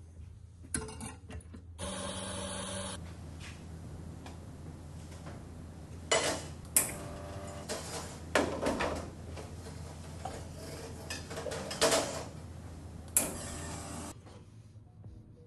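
Espresso being made at a café espresso machine: a brief steady whirr like a coffee grinder about two seconds in, then a series of sharp metal knocks and clinks of the portafilter, cups and jug, over a low steady machine hum.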